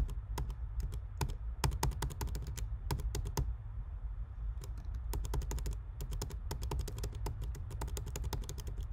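Computer keyboard keys clicking in rapid, irregular runs, several presses a second with short pauses: Command-Z being pressed over and over to undo steps. A low steady hum runs underneath.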